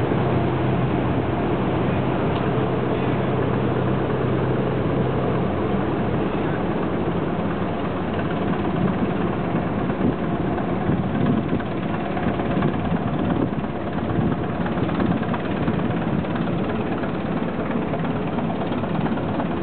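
Waterbus ferry's engines running steadily as the boat comes in to the pier. A low steady hum drops out about six seconds in, and the engines run on at idle.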